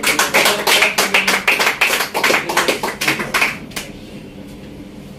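A small group of people clapping by hand, a quick irregular patter that dies away about four seconds in.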